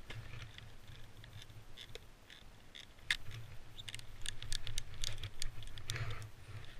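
Snowboard sliding through soft snow with a low rumble and hiss, and many small sharp clicks and rattles that grow busier from about three seconds in.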